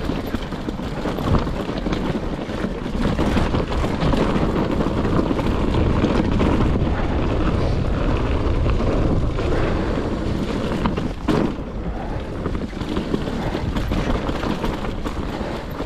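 Wind buffeting the microphone of a rider's camera while riding, with the rumble and occasional knocks of a bike going over a rough trail, one sharper knock about eleven seconds in.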